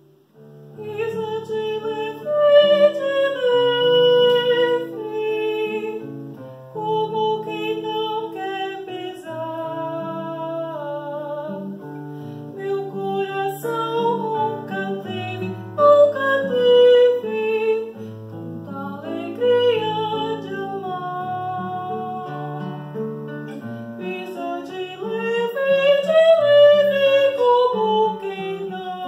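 A woman singing an art song with classical guitar accompaniment. The voice and guitar come in about a second in, and the singing rises and falls in long phrases.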